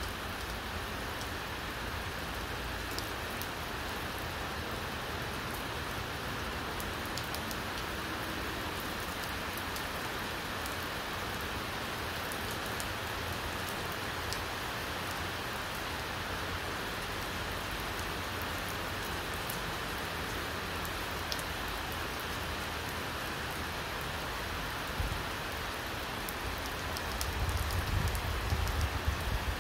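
Heavy downpour of rain on a wet paved driveway: a dense, steady hiss with scattered sharper drop ticks. A low rumble grows near the end.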